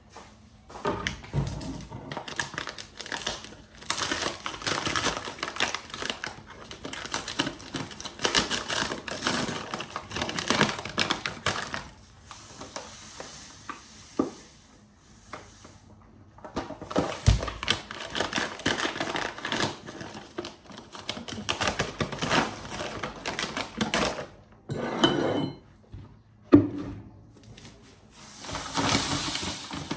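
Kitchen utensils and dishes clattering and scraping in dense runs of rapid clicks and knocks, with a softer hissing stretch near the middle.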